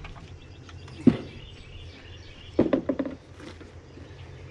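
Dull knocks from work on a mobile home's roof edge as fascia metal is fitted: one sharp knock about a second in, then a quick run of four or five knocks near the middle.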